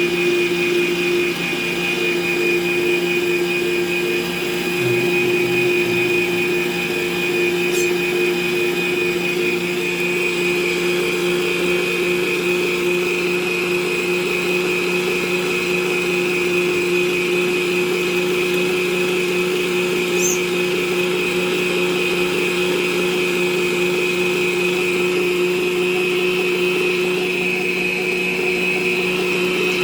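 Electric planetary stand mixer running steadily at one speed, beating cake batter, its motor giving an even whine.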